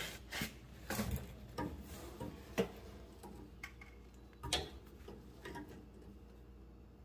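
Irregular small metal clicks and taps as side cutters grip and work a cotter pin out of the castle nut on a tie rod end. The louder clicks come about a second in, near two and a half seconds and past four seconds.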